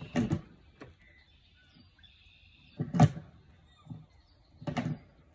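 Skateboard wheels and deck knocking against a small wedge ramp and asphalt as tricks are tried: a couple of knocks at the start, the loudest about three seconds in, and another near the end.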